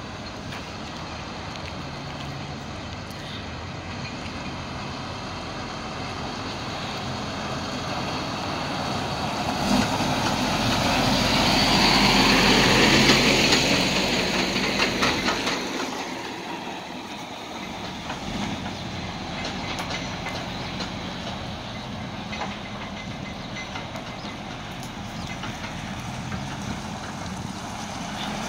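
Semi-truck pulling an empty tri-axle container chassis trailer drives slowly past: engine and tyre noise grow louder to a peak about twelve seconds in, with some clattering from the trailer as it passes close, then fade as it moves off toward the gate.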